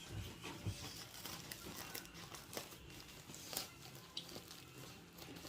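Shipping packaging being opened by hand: irregular crinkling and crackling, with some tearing, as the parcel is unwrapped.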